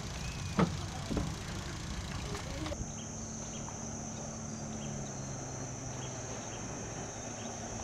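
Outdoor ambience with a steady high-pitched insect drone. A sharp knock comes about half a second in and a softer one a little later, and the background changes abruptly about a third of the way through.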